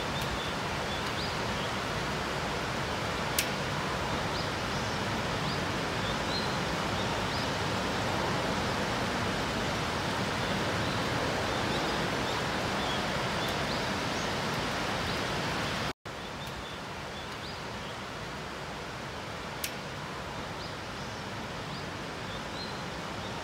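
Steady rain ambience, an even hiss of falling rain with a few faint high chirps. It breaks off for an instant about two-thirds through and resumes slightly quieter.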